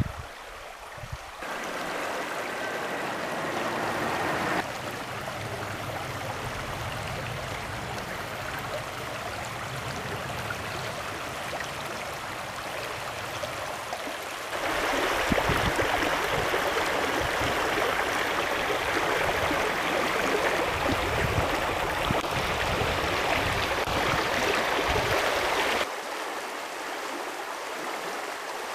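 Shallow river running fast over stones and riffles: a steady rush of water that steps louder about halfway through and drops back shortly before the end.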